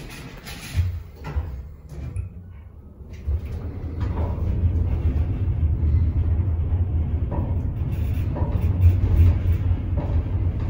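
Schindler elevator's doors sliding shut with a couple of knocks, then a strong low rumble from about three and a half seconds in as the car travels down.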